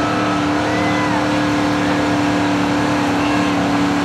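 Chevrolet pickup's engine running hard at a steady pitch under full load as it drags a weight-transfer pull sled, the truck slowing as the sled's weight builds.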